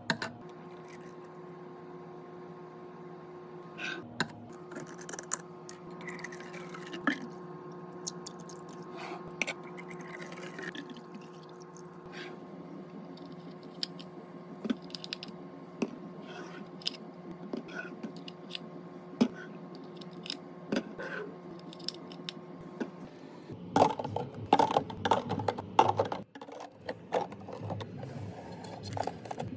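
Snacks, drinks and packaging being handled and set down while a fridge is restocked: scattered clicks, taps and light crinkles over a steady hum. From about two-thirds through, the handling gets busier and louder, with more clattering.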